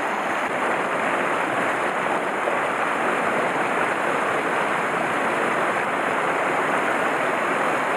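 Mountain stream water rushing, a steady even noise without a break.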